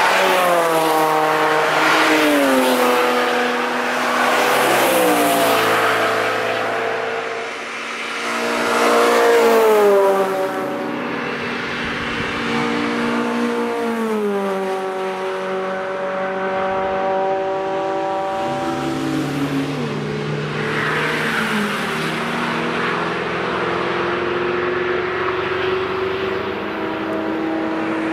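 Honda cars passing one after another at speed on a race track, their high-revving engines dropping in pitch as each goes by. The loudest pass comes about ten seconds in.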